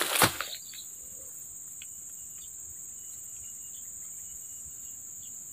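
Steady, high-pitched insect chorus of crickets or cicadas droning from the surrounding swamp vegetation, with a brief rustle at the very start.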